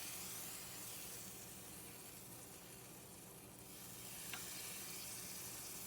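A grilled cheese sandwich sizzling faintly in butter and bacon grease in a frying pan, with a light click about four seconds in.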